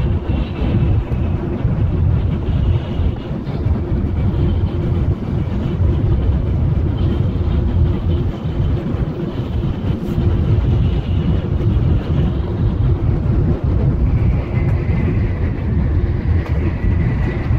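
Shinkansen bullet train running at speed, heard inside the passenger car: a steady low rumble with a faint high tone over it.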